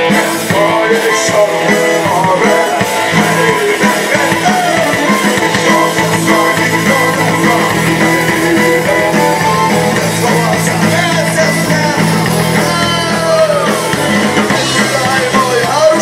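A live rock band plays a song on accordion, electric guitars, bass guitar and drums, with a man singing, amplified through the stage PA.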